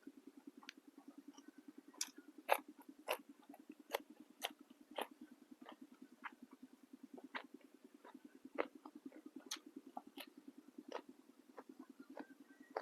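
A person chewing crisp raw vegetables, with irregular crunches and mouth clicks at close range over a steady, fast-pulsing low hum.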